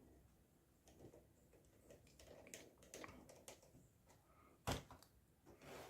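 Faint scattered clicks and light handling noises of a screwdriver and metal desktop case as the rear screws that hold the side cover go back in, with one sharper click a little before the end.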